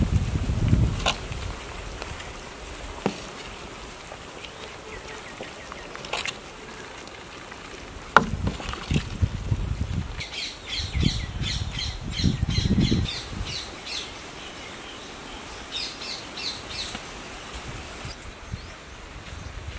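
A ladle stirring through thick pork gravy in a cooking pot, with a few low swells of sound and a sharp click about eight seconds in. A bird calls in a quick series of high chirps, about four a second, partway through and again briefly near the end.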